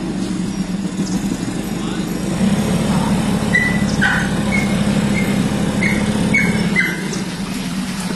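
A boat's outboard motor running steadily under way, with a low, rapidly pulsing drone that grows a little louder for a few seconds in the middle. Several short, high chirps sound over it partway through.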